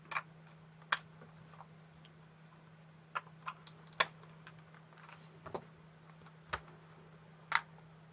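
Scattered sharp clicks and taps, about eight at uneven intervals, from handling the Ethernet cable tester and patch cable, over a steady low hum. Faint cricket-like chirping runs in the background.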